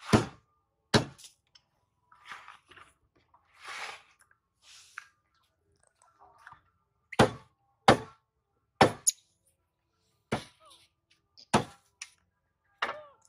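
Sharp, crisp snaps, about eight of them at uneven intervals, as long beans are broken by hand, with softer rustling of leaves from the basin of greens in between.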